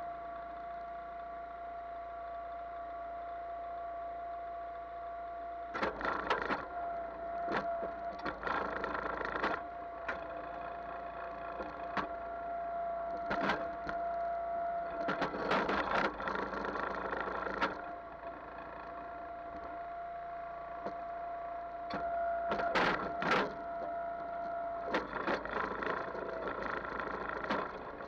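37-ton hydraulic log splitter running with a steady whine while its ram forces a large ash round through a six-way wedge. The wood cracks and splinters in several bursts as it splits apart.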